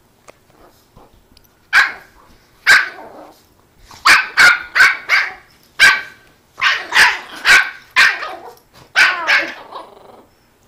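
Two dogs playfighting and barking in short, sharp barks: two single barks about two seconds in, then a rapid run of barks from about four seconds on.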